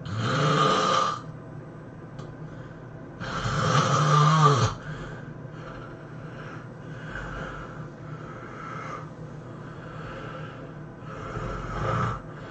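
A person snoring heavily. There are three loud snores, each lasting about a second or more: one at the start, one about three seconds in and one near the end. Fainter breathing sounds come in between.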